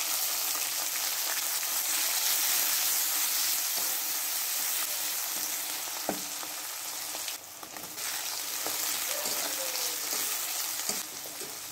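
Chopped onion and garlic sizzling in hot oil in a kadai, a steady hiss that starts just as they go in, with a few light knocks as they are stirred.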